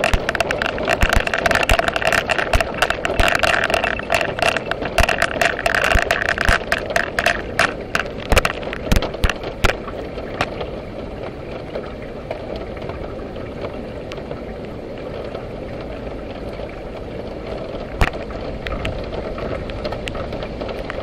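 Heavy downpour: a steady rush of rain, with many sharp drops striking close to the microphone during the first ten seconds, then thinning to an even hiss with one more sharp tap near the end.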